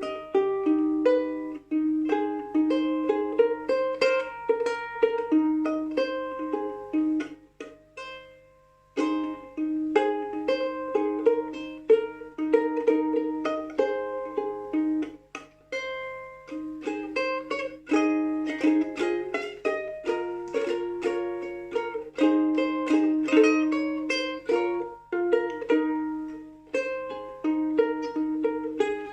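Solo ukulele improvisation: plucked notes and short melodic phrases, with a brief pause about eight seconds in.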